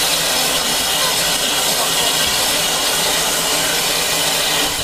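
Drummond M7 0-4-4 tank steam locomotive standing still with steam hissing steadily and loudly.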